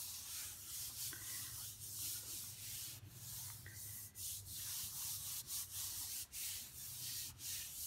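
Hands rubbing and pressing over the back of a sheet of paper laid on wet acrylic paint on plastic film, a soft papery swishing in repeated strokes, as the paint is transferred to make a monoprint.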